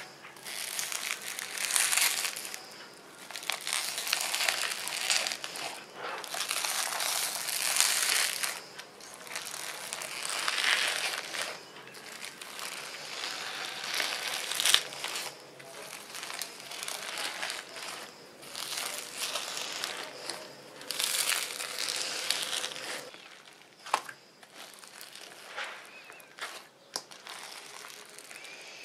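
Pink foam-bead slime squeezed and kneaded by hand in a steel bowl, the foam beads crackling and crunching in repeated squishes, one every second or two.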